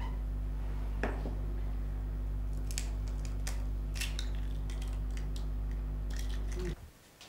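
An egg being cracked and its shell pulled apart by hand over a glass bowl: a sharp crack about a second in, then several small clicks of shell. A steady low electrical hum runs underneath and cuts off near the end.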